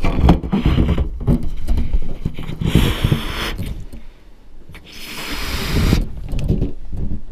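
Latex balloon handled with a GoPro inside it: the rubber rubbing and bumping against the camera, with two longer rushes of air about three and five seconds in as the balloon is inflated.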